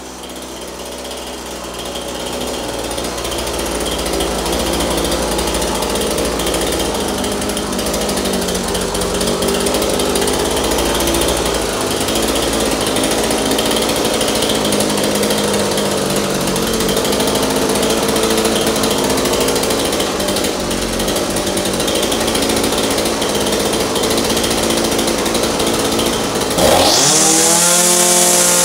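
Echo SRM-2620 string trimmer's small two-stroke engine running steadily at a low, slightly wavering idle. Near the end the throttle is opened and it revs sharply up to high speed.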